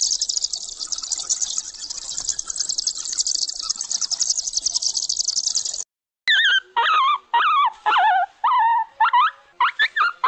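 A brood of baby chicks peeping, many fast high-pitched cheeps at once. The peeping cuts off about six seconds in, and young puppies give a run of short, wavering whimpers and whines.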